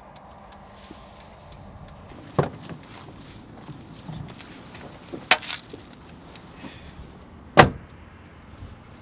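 Car doors being handled: three sharp knocks over a low, steady background, the loudest near the end, like a door being shut.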